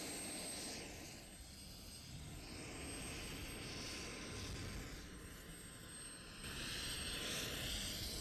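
UH-1Y Venom helicopter running on the ground, its twin turboshaft engines and turning rotor making a steady rushing noise that grows louder about six and a half seconds in.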